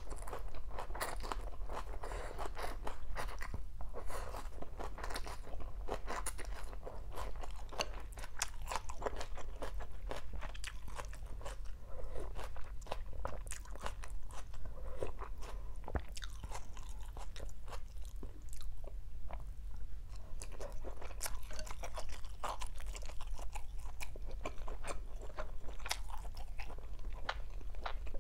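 Close-up chewing of a mouthful of bún chả cá (rice noodles, salmon fish cake and raw greens), a continuous run of small wet crunches and mouth clicks.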